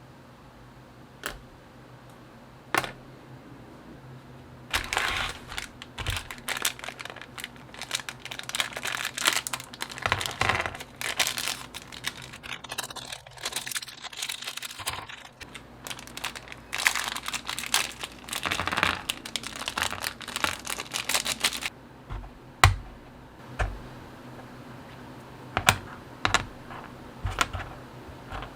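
Typing on a mechanical keyboard: a few separate key presses, then about seventeen seconds of fast, continuous key clacking, then a few single presses again near the end.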